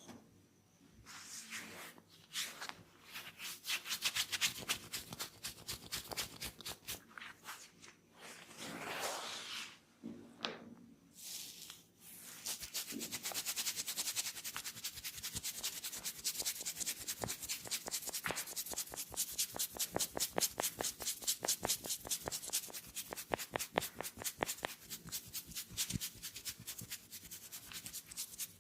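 Hands rubbing and scratching briskly through hair and over the scalp in a head massage: slower, uneven strokes at first, then from about halfway a fast, even run of scratchy strokes.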